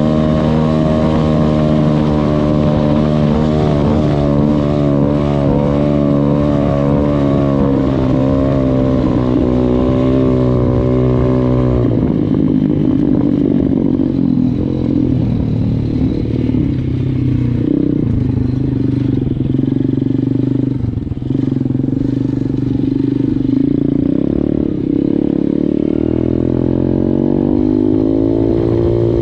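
KXD 612 Pro pit bike engine running under way, held at a steady high note that wavers slightly, then dropping sharply to a lower, rougher note about halfway through as the throttle is eased. Near the end the revs climb again in a smooth rise.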